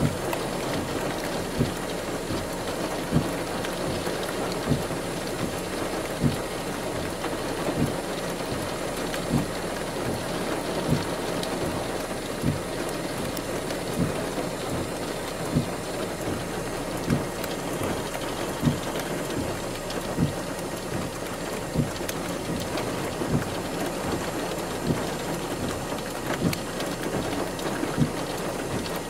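Steady rain noise, with a short low thump repeating evenly about every second and a half.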